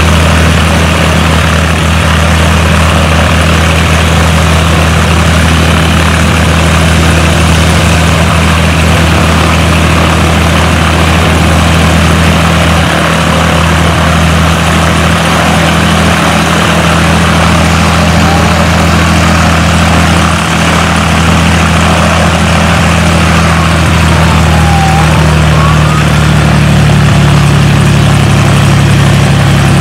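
Single-engine high-wing propeller plane's piston engine idling steadily on the ground, propeller turning. The engine note shifts slightly near the end.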